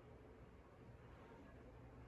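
Faint, steady hum and air noise of a 52-inch hugger ceiling fan running on its low speed in reverse.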